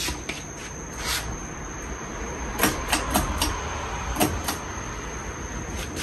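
A 52-inch Hampton Bay Cameron II Plus ceiling fan with a 188mm spinner motor running, giving a steady whir of motor and blades under a thin, steady high whine. Light irregular clicks and ticks come several times through the middle.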